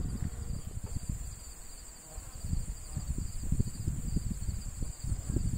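Steady high insect trilling, one layer pulsing quickly beneath a continuous buzz, over wind buffeting the microphone in uneven gusts; the wind is the loudest part.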